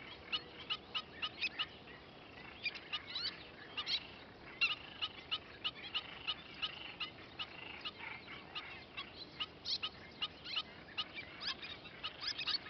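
Little terns calling: short, sharp calls repeated rapidly, several a second, in runs broken by brief pauses.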